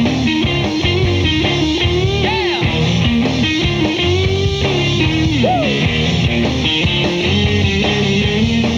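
Live rock band playing an instrumental break: a Stratocaster-style electric guitar plays a lead line with string bends and slides over bass and drums.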